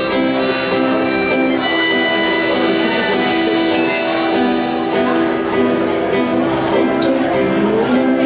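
Live folk band playing an instrumental passage: accordion holding long chords over strummed acoustic guitar and upright bass.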